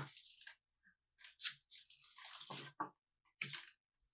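Faint, irregular crinkly rustling with a few light clicks as thin plastic-insulated wires are handled and laid out on a wooden table.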